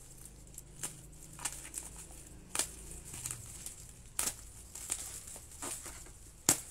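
Plastic bubble wrap crinkling and crackling as it is handled and cut open, with sharp crackles about once a second, the loudest near the end.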